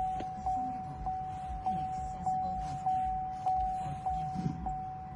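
Car warning chime sounding over and over, one steady mid-pitched tone struck about every 0.6 seconds and fading a little between strikes. This is the Chevrolet Camaro's warning chime.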